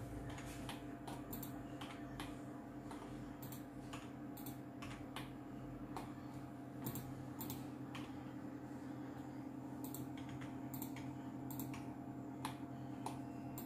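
Computer keyboard and mouse clicking in scattered, irregular taps, over a steady low hum.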